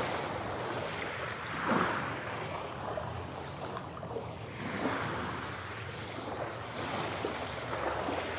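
Ocean surf: waves breaking and washing up a beach in a steady hiss that swells and fades, loudest about two seconds in.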